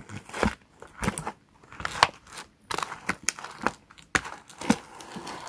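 Cardboard and plastic doll packaging crinkling and crackling in irregular bursts as hands work a fashion doll loose from its display box.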